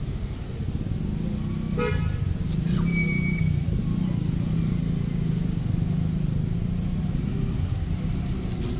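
Steady low outdoor rumble, with a brief vehicle horn toot about two seconds in and a few short high tones around it.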